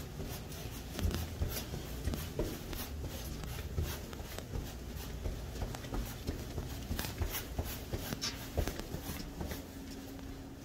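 Soft, irregular footsteps and clothing rustle as a toddler in a puffy snowsuit walks on hallway carpet, with scattered light clicks.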